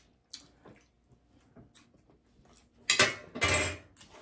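Cutlery and dishes handled at a meal: a few light clinks, then two loud, short clattering handling sounds close together about three seconds in.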